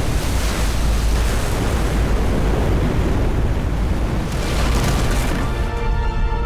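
Film battle soundtrack: a loud, dense rush of churning sea and heavy rumbling booms, mixed with orchestral music. Held music chords come up about four and a half seconds in.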